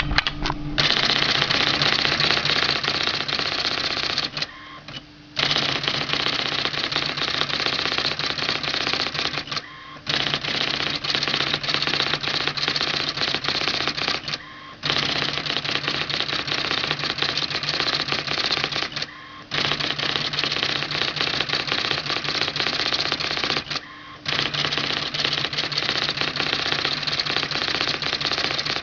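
IBM Electronic Typewriter Model 95 printing out stored text with right-margin justification: a fast, continuous chatter of strikes in runs of about four to five seconds, broken five times by a short pause between lines. A steady low hum runs under the strikes.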